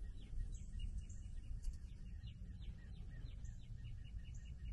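Low, steady rumble of a Freightliner truck's diesel engine idling through a home-built stainless muffler that keeps it quiet. Over it, a bird chirps in quick repeated short notes, several a second.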